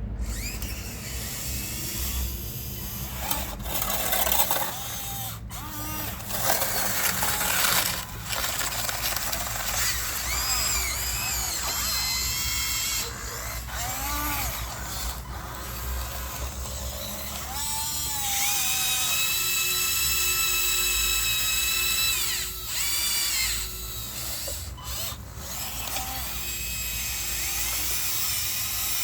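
Electric motors and gearboxes of radio-controlled construction models whining as they work. The pitch rises and falls as the motors start, speed up and stop, with one steady whine held for a few seconds about two-thirds of the way through.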